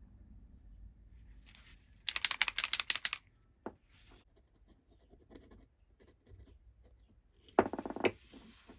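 A hand tool scraping grime off a Shimano Deore LX rear derailleur: two short bursts of rapid scratchy clicking, about two seconds in and again near the end, with a single tick between.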